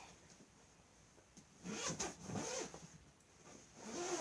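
Zipper on a fabric beanbag cover being pulled open, a short zipping sound about halfway through after a quiet start.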